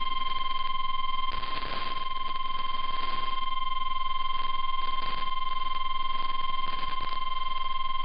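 A single steady alert tone a little above 1 kHz, the 1050 Hz NOAA Weather Radio warning alarm tone, relayed on an AM broadcast and heard through a web SDR receiver. The tone runs unbroken over radio hiss, with several brief surges of static crackle.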